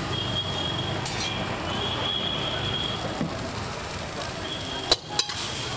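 Noodles frying in a hot wok over a gas burner: a steady sizzling hiss, with two sharp knocks close together near the end.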